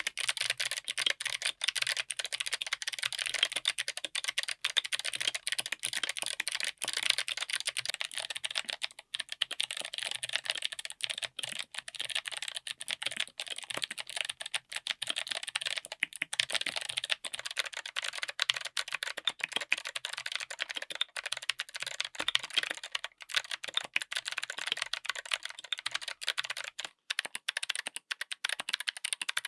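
Fast, continuous typing on a mechanical keyboard fitted with clicky switches: a dense stream of sharp key clicks, with only a couple of brief pauses.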